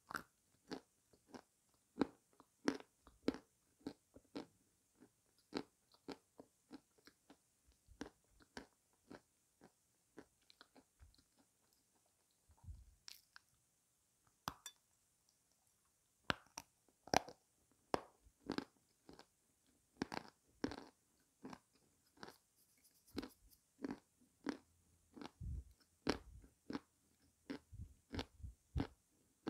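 Close-up crunching and chewing of dry chunks of edible clay: short crisp bites, about one or two a second, with a sparser stretch in the middle.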